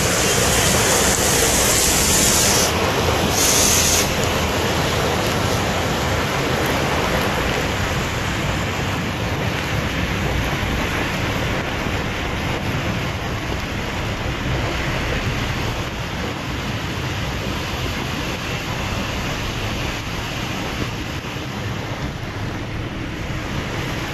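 Heavy rain pouring onto a road: a steady hiss with a low rumble underneath.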